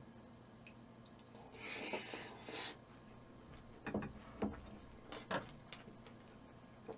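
Close-up eating sounds: a hissy mouthful of scorched rice and chicken feet taken about two seconds in, then chewing with a few light clicks.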